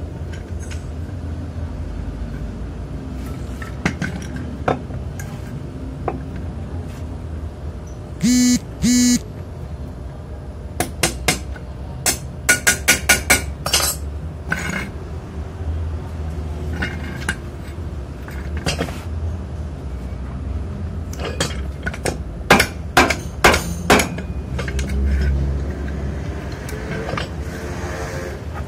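Stick welding and light hammering on the steel parts of a home-made coil-spring compressor: two short buzzing arc bursts about eight seconds in, then runs of sharp metallic clinks and taps, over a steady low hum.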